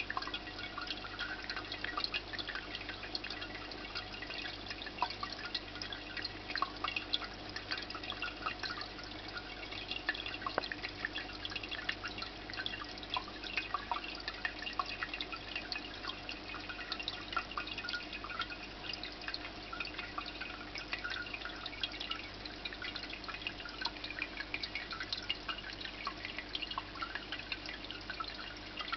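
Indoor tabletop water fountain: water trickling and dripping steadily, with many small irregular drops splashing. A faint, steady low tone runs underneath.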